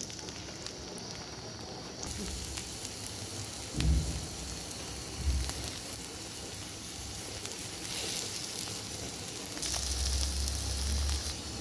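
Chicken shami kababs shallow-frying in hot oil in a wide pan: a steady sizzle full of fine crackles. Two dull knocks about four and five seconds in, and a low rumble near the end.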